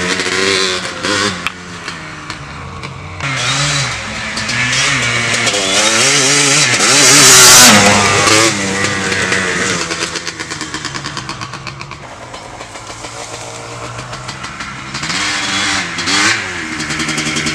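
1991 Yamaha Blaster's single-cylinder two-stroke engine through an FMF exhaust pipe, revving up and down. The pitch climbs to its loudest peak about halfway through, falls back to a low, rapid pulsing, and rises again near the end.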